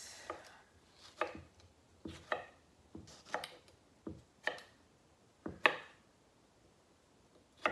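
Kitchen knife chopping a tomato on a wooden cutting board: about ten sharp, uneven knocks of the blade hitting the board, then a pause of a second or so near the end.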